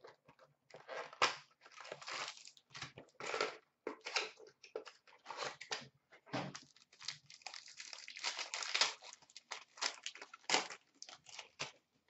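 Plastic wrappers of hockey card packs being torn open and crumpled by hand: an irregular run of crinkling and tearing.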